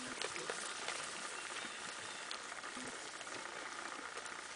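Goats pulling at and chewing loose hay: a steady crackling rustle with small scattered ticks.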